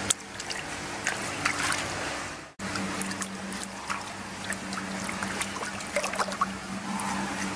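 Water trickling and splashing, with many small sharp drips and plops over a steady low hum. The sound cuts out completely for a moment about two and a half seconds in.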